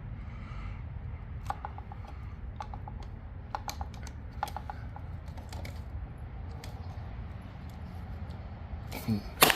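Scattered light clicks and taps of hand tools being handled, then a loud sharp clatter near the end as a tool is dropped.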